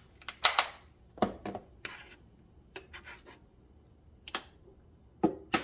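Scattered light clicks and scrapes of cookware on a nonstick skillet, with two sharper knocks near the end.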